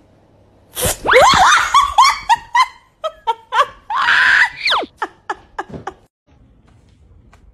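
A person shrieking and laughing, startled by a pouncing kitten: a quick run of high rising squeals, a longer scream about four seconds in, then short laughs that stop about six seconds in.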